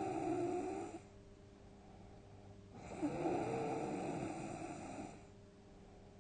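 A sleeping person snoring heavily. One snore trails off about a second in, and the next runs from about three seconds to five, with a quieter stretch between.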